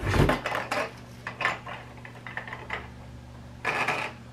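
A boxed frosted LED globe bulb being handled and shaken, with a thump at the start and then several short bursts of clinking rattles from inside the small carton. The loose rattle sounds like a damaged bulb.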